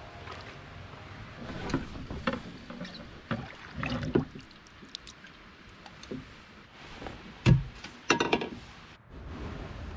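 Canoeing sounds: water splashing and pouring out of a can lifted from the loch, among scattered knocks on the canoe. There is one loud thump about seven and a half seconds in, followed by a quick run of knocks.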